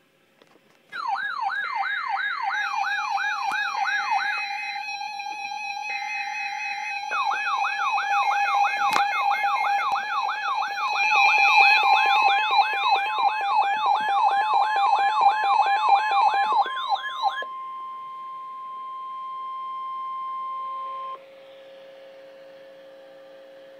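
Emergency Alert System alarm tones for a severe thunderstorm warning: a fast warbling siren tone layered over steady held tones, with three short bursts of buzzing in the first few seconds. The warbling stops about 17 seconds in, and a single steady tone holds until it cuts off suddenly about 21 seconds in, leaving fainter steady tones.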